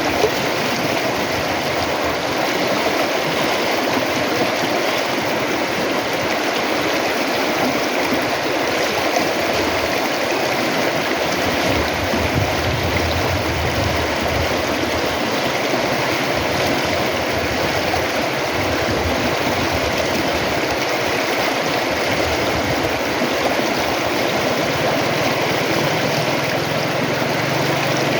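River water rushing and gurgling in a steady, unbroken flow, with a deeper low rumble for a few seconds about halfway through.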